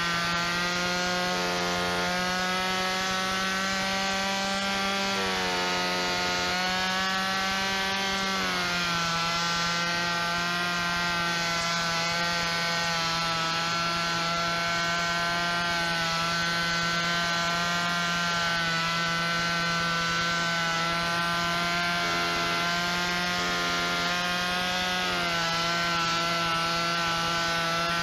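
Gas chainsaw engine running steadily at cutting speed while carving into a pumpkin. Its pitch dips a little a few times as the chain bites under load, and picks up again near the end.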